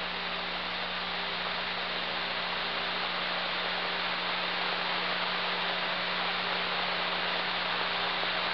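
Steady hiss with a low, even electrical hum: background noise of the aircraft's radio and intercom audio between transmissions.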